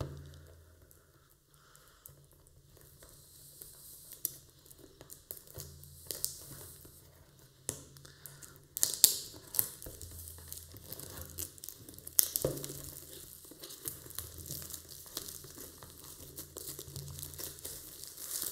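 Packaging wrapper being torn off a product box and crumpled by hand: irregular crinkling and tearing crackles, sparse at first and busier after a few seconds, with a couple of sharp loud rips about halfway through.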